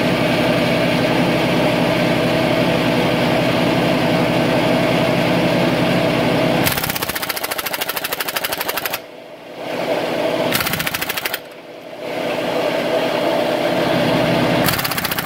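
Nitro Cat half-inch air impact wrench hammering on a seized locking lug nut through a 12-point socket pounded over it. It runs steadily for several seconds, then hammers in three rapid bursts with short stops between them, the nut not breaking loose.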